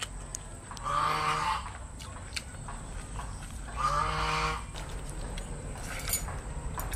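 A farm animal calling twice, two short pitched calls about three seconds apart.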